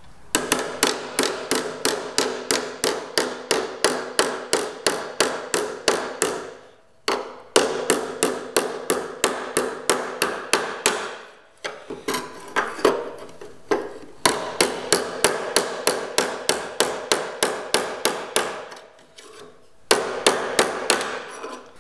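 Rapid hammer blows on a clamped sheet-metal repair panel, about five a second, in long runs with short pauses, and the panel rings under each strike. This is hand tuck shrinking: the tucked-up edge is being beaten down to shrink the metal.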